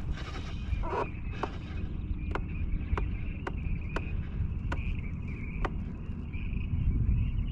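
Low rumble of wind buffeting the microphone on an open boat, with a faint steady high whine underneath. Sharp ticks come about every half second to a second throughout.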